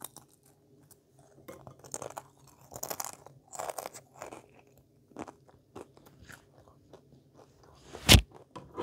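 Potato chips being crunched and chewed, in dense crunching bursts for the first few seconds, then sparser, quieter chewing. A single sharp thump near the end is the loudest sound.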